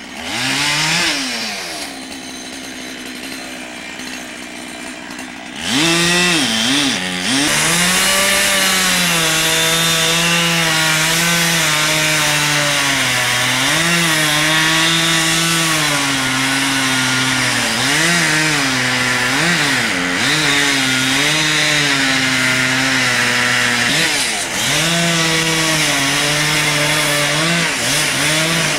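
Gas chainsaw idling for a few seconds, then revving up about six seconds in and cutting steadily through a sweet gum trunk. Its pitch sags and recovers several times as the chain bogs under load in the wood.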